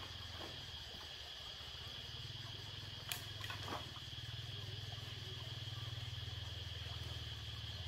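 Steady high-pitched chorus of forest insects over a low steady hum, with two sharp knocks about half a second apart roughly three seconds in.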